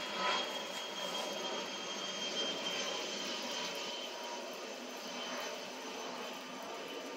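An airplane flying overhead, its engine noise a steady drone that slowly fades as it passes.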